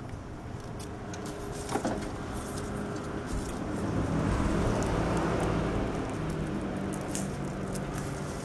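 A motor vehicle passes close by. Its engine hum and road noise swell to a peak about halfway through and then fade away. Scattered light clicks run under it, with a sharper metallic clink about two seconds in.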